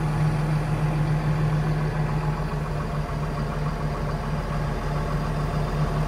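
AGCO Challenger MT575D tractor's diesel engine running steadily, heard from inside the cab, with a strong even low hum while the loader hydraulics lift the front-end loader very slowly.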